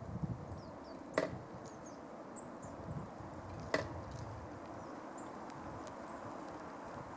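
Two sharp wooden knocks, about two and a half seconds apart, as the hinged lid of a wooden squirrel feeder box clacks down while a red squirrel feeds from it.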